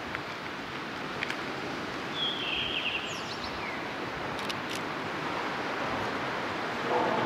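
Steady noise of small waves washing on a rocky shore, with wind. A bird calls once, briefly, about two seconds in.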